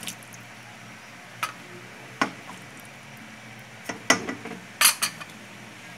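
Metal ladle clinking and knocking against the side of a metal cooking pot while stirring potatoes into a stew: a few separate knocks, then a quick cluster of clinks near the end, over a faint steady low hum.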